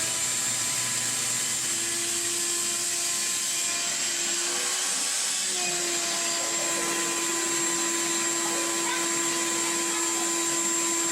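Vacuum cleaner running steadily as it sucks the water out of a toilet, a loud whirring hiss with a steady whine. The whine shifts slightly in pitch about five and a half seconds in.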